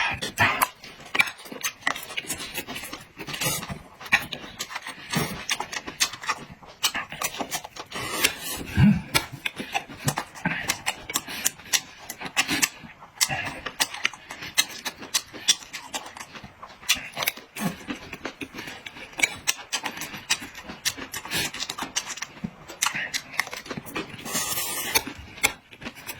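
A person eating close to the microphone: wet chewing and lip-smacking, a dense, irregular run of clicks and smacks.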